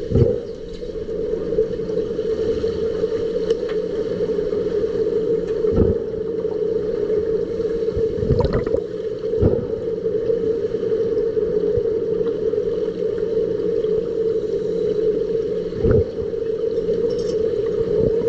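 Swimming pool heard from underwater: a steady hum, with a few dull knocks from the players struggling in the water.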